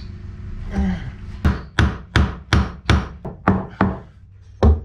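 Hammer striking wood in a run of about eight sharp blows at roughly three a second, then a short pause and one more blow, fastening a plastic frame piece into a wooden boat's hull.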